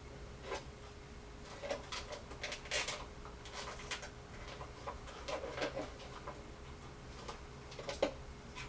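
Irregular clicks, taps and rustles of ring-light kit parts being handled as an attachment is taken off, with a sharper knock near the end. A faint steady hum runs underneath.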